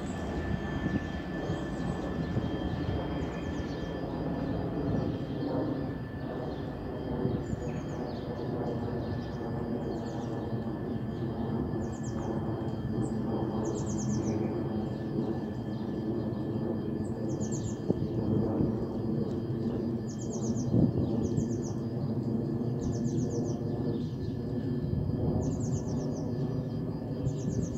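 Class 66 diesel locomotives' EMD two-stroke V12 engines running steadily as a freight train pulls away, with a small bird chirping every second or two over it.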